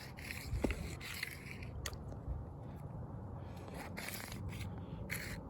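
Rustling, scraping and light clicks of tools and items being handled and shifted in a tool bag.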